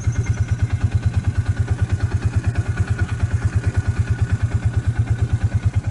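A Ranger side-by-side utility vehicle's engine running at a steady, low, even throb of about a dozen pulses a second, with a faint steady whine above it.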